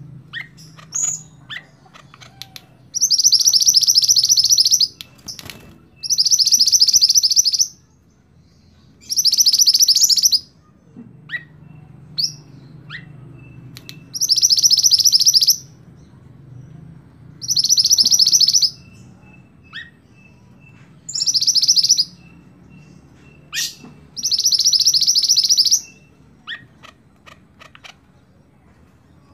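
A male minivet (mantenan) singing seven loud, high, rapid trilled phrases of about two seconds each, one every three to four seconds, with short faint chirps between them.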